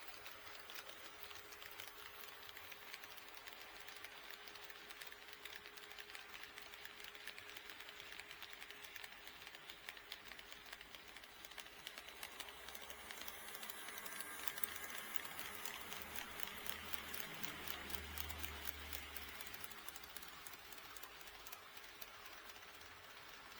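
HO-scale model train running on KATO Unitrack, its wheels clicking rapidly over the track joints. The clicking grows louder and denser with a low rumble as the train comes closest, about two-thirds of the way in, then fades.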